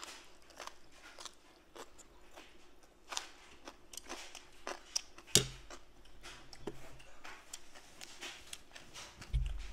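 Close-miked chewing and crunching of food in the mouth: a run of short, irregular crunches. A low thump comes about five and a half seconds in and again near the end.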